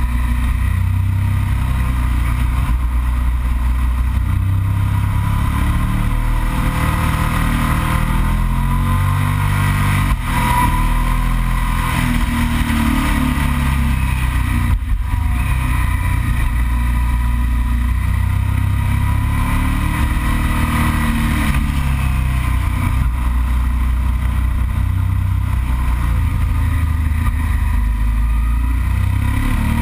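Yamaha TDM 900's parallel-twin engine running under way, its pitch rising and falling repeatedly as the bike accelerates and eases off.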